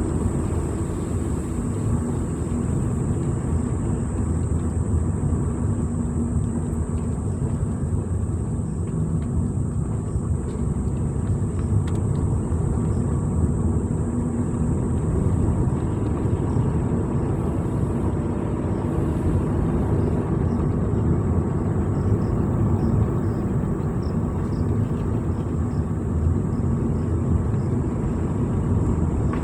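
A vehicle driving along steadily: a continuous low rumble of engine and road noise with no change in pace.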